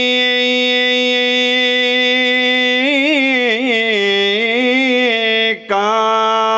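A man chanting Arabic sermon verses in a drawn-out melodic style. He holds one long steady note for about three seconds, then winds through ornamented turns, breaks off briefly near the end, and takes up another held note.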